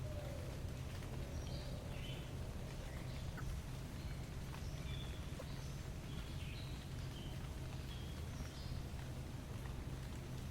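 Scattered short, high bird chirps over a steady low rumble.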